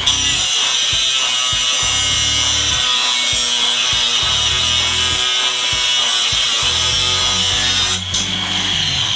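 Brushed Milwaukee angle grinder cutting into a steel drill bit held in a vise, giving a steady high-pitched grinding screech. The screech dips briefly about eight seconds in.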